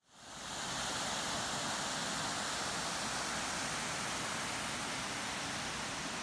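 Steady rushing of water pouring over a small stone weir on a river, fading in over the first half second.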